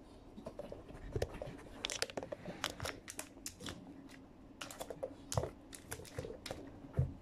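Irregular clicks and taps of a KONG Gyro treat-dispensing toy being nosed and pawed by a dog, its hard plastic parts and the treats inside knocking, with a few dull thumps as the toy is pushed over the rug.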